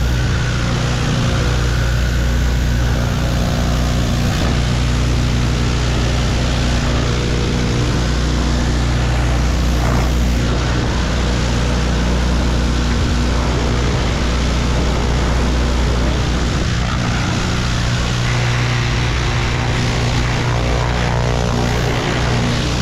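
Gas pressure washer's small engine running steadily, with the hiss of the high-pressure water spray over it.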